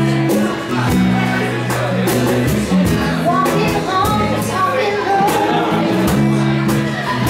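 Live acoustic performance: strummed acoustic guitars holding steady chords, with a woman singing into a microphone over them from about three seconds in.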